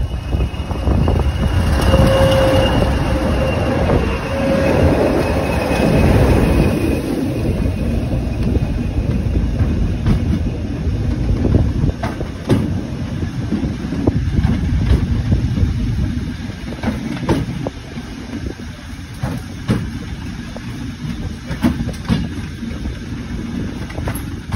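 A train running on the rails: a loud rumble with a brief squealing tone from the wheels in the first few seconds, growing quieter about two-thirds of the way through. Wheels clack over rail joints throughout.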